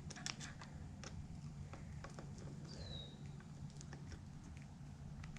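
Faint scattered clicks and small scrapes of a screwdriver unscrewing the front brake reservoir cover's screws, with one short squeak falling in pitch about three seconds in, over a low steady hum.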